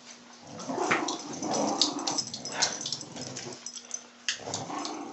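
Dogs growling in play during a tug-of-war game, in two rough bouts: the first runs from about half a second to three and a half seconds in, and the second starts again near the end.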